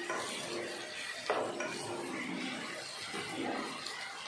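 Wooden spatula stirring cut brinjal pieces in a nonstick kadai over a steady frying hiss, with scattered knocks against the pan, the sharpest about a second and a half in.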